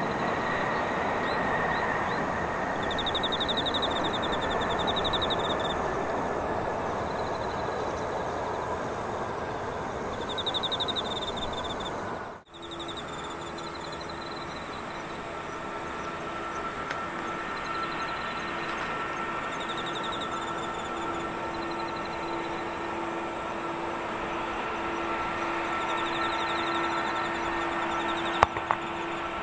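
Jet airliner landing: a broad rush of jet noise from the rollout, with an engine whine that slowly falls. After a cut about twelve seconds in, a Boeing 777 taxiing with its engines at idle gives a quieter steady hum and whine. Birds chirp in short bursts throughout, and two sharp clicks sound near the end.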